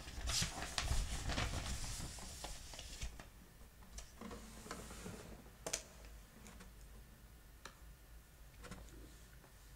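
Light clicking and rustling handling noise, busy for about the first three seconds, then a few isolated sharp clicks.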